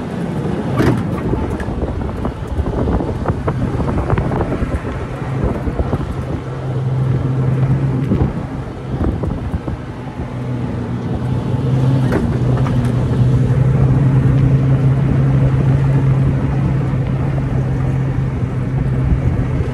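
Jeep Wrangler LJ's 4.0-litre straight-six driving at speed on a dusty gravel road, with tyres crunching over the gravel and wind buffeting the microphone. Knocks and rattles come over bumps in the first few seconds, then the engine settles into a steady, louder drone.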